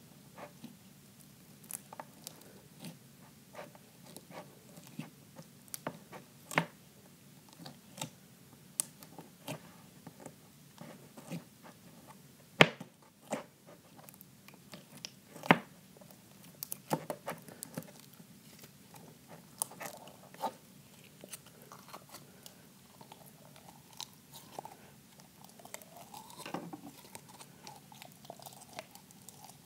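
Fingers poking and pressing thick white slime in a plastic jar, giving irregular sticky clicks and crackling pops, with two louder pops a little before and after the middle.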